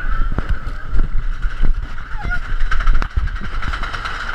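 Mine-train roller coaster running along its track: a steady rattle and rumble with scattered sharp knocks from the cars.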